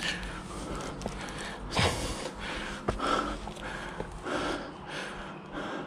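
A hiker panting hard: quick, heavy breaths in and out, about two a second, out of breath from the effort of climbing a steep slope hand over hand on a rope.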